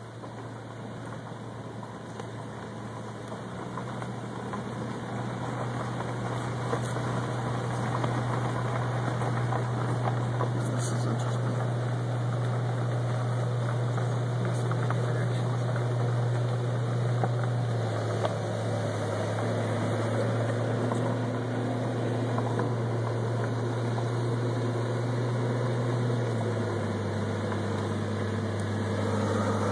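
Steady low engine hum heard from inside a car, growing louder over the first several seconds, then dropping in pitch in two steps, about two-thirds of the way through and again near the end.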